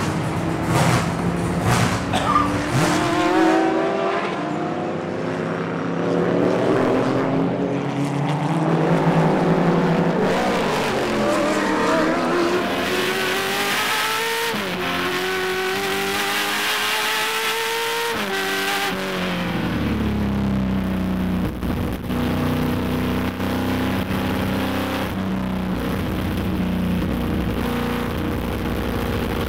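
Corvette C6 race car's V8 engine on track, heard from inside the cockpit: revving up and down, the pitch climbing under acceleration and dropping on shifts and braking. For the last ten seconds or so it holds a steadier pitch.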